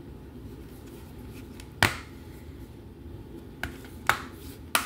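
Plastic DVD case handled and turned over in the hands: four sharp clicks and taps, the loudest a little under two seconds in and three more close together near the end, over a steady low hum.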